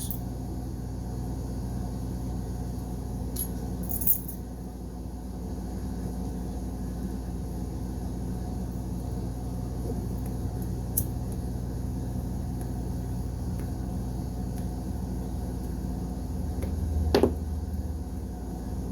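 Steady low mechanical hum, with a few faint clicks and a short falling sound near the end.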